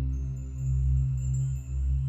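Background music with sustained low bass notes and faint held high tones.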